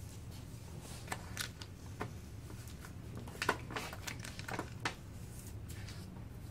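A wooden stick scraping and pressing along a vinyl paint stencil while it is being peeled, giving scattered short scratches and crinkling clicks, the sharpest about three and a half seconds in and again just before five seconds. A low steady hum runs underneath.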